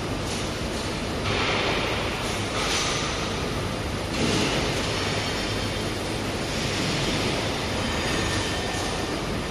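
Automated gantry sorting machine for laser-cut steel plates running: a steady low mechanical hum with several short, louder hissing surges in the first half.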